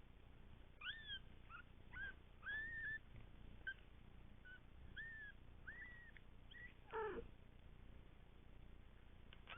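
Two-week-old kittens mewing faintly: a string of short, high, thin mews, about ten in the first seven seconds, the last one broader and louder.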